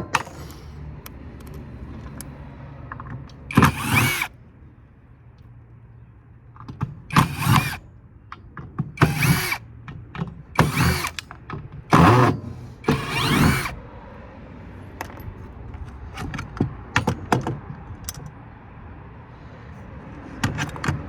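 A power drill/driver running in about six short bursts, each under a second, backing out the screws that hold a heatsink, with light clicks and clatter of metal parts between the bursts.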